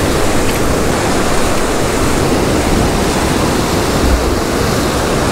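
Ocean surf breaking and washing over coastal rocks: a loud, steady rush of water.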